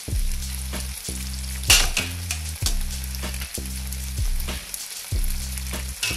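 Pesto, tomato and garlic sauce in olive oil sizzling in a frying pan with freshly cooked penne added, with a few short clicks and knocks, the loudest nearly two seconds in.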